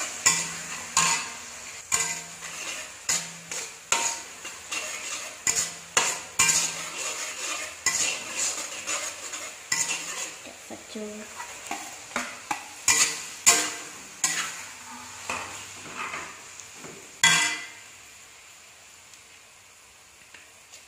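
Metal ladle scraping and clanking against a light metal wok as garlic and chilli are stir-fried in hot oil, with a steady sizzle underneath. The clanks come about one to two a second and stop near the end, leaving a quieter sizzle.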